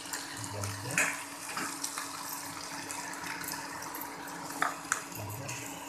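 Oyster mushrooms, onion and capsicum frying in a non-stick pan with a steady sizzle, while a metal spoon stirs them, scraping and knocking against the pan a few times.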